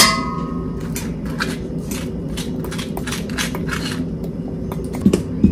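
Metal spoons scraping avocado out of the skins and tapping a stainless steel mixing bowl. A sharp clink at the start leaves the bowl ringing briefly, followed by scattered light scrapes and taps over a steady low hum.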